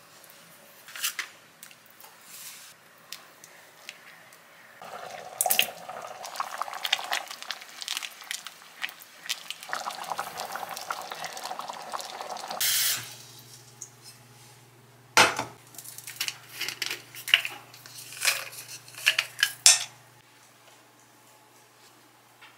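A pot of curry simmering and bubbling, with utensils clinking and tapping against the pot and dishes. A low steady hum comes in about halfway through and stops shortly before the end.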